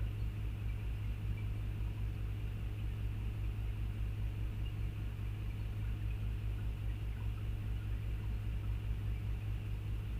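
Backhoe's diesel engine running steadily: a constant low drone with a fast, even throb underneath, not changing in pitch or level.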